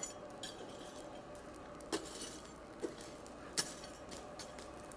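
Steel ball bearing dropped onto the face of a 66 lb cast steel anvil and bouncing, a rebound test of how hard the face is. A few sharp metallic clinks, each with a short ring, come closer together as the ball settles.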